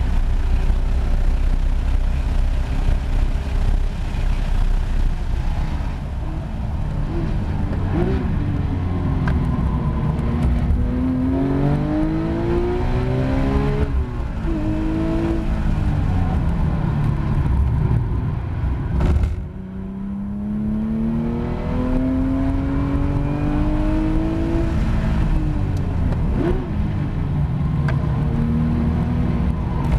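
Porsche 911 GT3 RS naturally aspirated flat-six heard from the cockpit on track. It runs at high speed with heavy wind and road noise, then slows. It then revs up in long rising sweeps and falls back several times as it is driven out of slow corners, with a brief sharp drop at a lift or shift about two-thirds of the way through.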